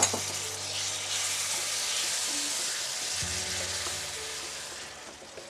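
Cooked black-eyed peas sizzling in hot grapeseed oil with sautéed aromatics in a stainless steel pan, stirred with a wooden spoon. A sharp knock comes at the very start, and the sizzle swells, then dies down near the end.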